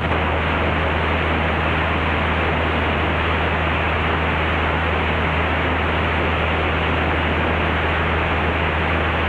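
Mooney M20C's four-cylinder engine and propeller droning steadily in flight, heard inside the cabin as a low hum under an even hiss of air noise.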